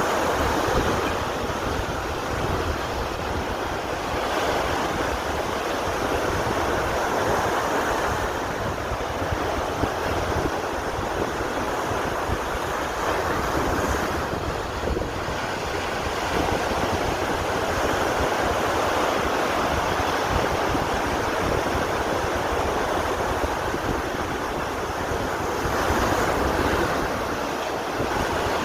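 Sea surf washing onto a beach in a continuous rush that swells and eases slowly, with wind buffeting the microphone.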